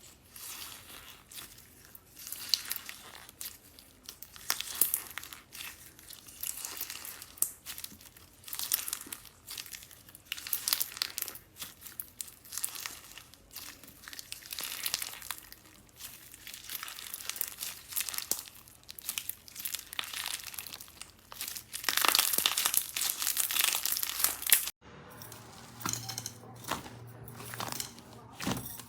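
Slime being squeezed and pressed by hand, giving crackling, crinkling sounds in repeated bursts every second or two, with a louder run of crackling near the end before a sudden cut to a quieter clip.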